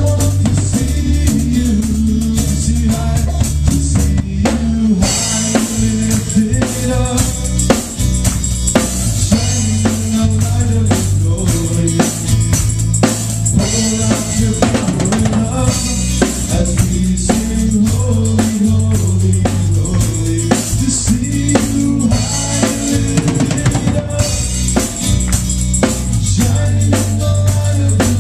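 Live worship band playing: a drum kit drives the beat with kick drum and snare hits over a low bass line and guitar.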